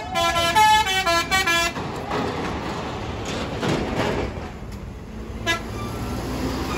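A coach's musical multi-tone horn (a "telolet" horn) plays a quick run of notes that stops about two seconds in. After it, the coach's engine and tyres rumble steadily as it drives past, with one sharp click near the end.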